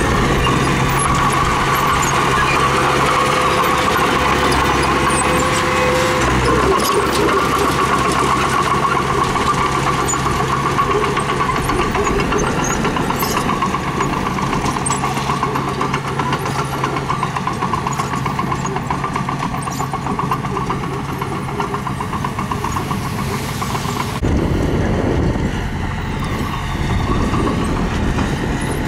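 Diesel engine of heavy earth-moving machinery running steadily, its note changing about six seconds in and again near the end, with scattered faint clanks.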